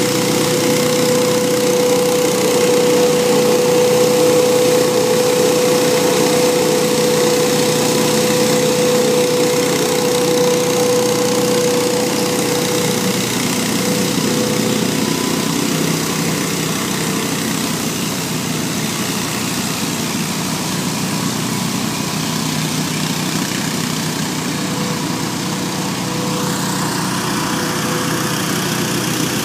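Hurricane 314 stand-on leaf blower running steadily, its engine and fan making a continuous drone with a strong steady whine. The whine weakens and the sound grows a little fainter in the second half as the machine moves away.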